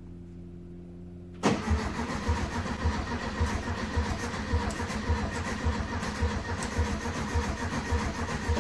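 A 1971 VW Beetle's engine cranked on the starter, starting suddenly about a second in and chugging with uneven low pulses for about seven seconds before cutting off. The engine does not catch, because fuel is not coming through the fuel pump.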